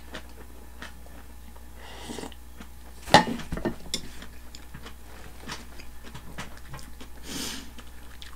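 Mealtime eating sounds: a brief sip from a wooden soup bowl, then a sharp knock about three seconds in as the bowl is set down on the table. After that comes steady chewing with small mouth clicks.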